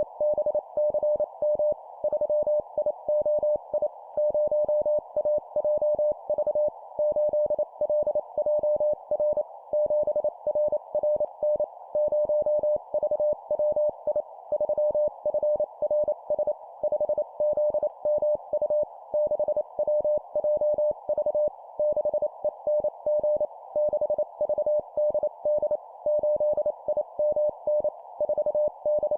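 Morse code (CW) at 25 words per minute: a single steady beep keyed on and off in rapid dots and dashes, spelling four-character groups of a number followed by three letters, over a steady hiss.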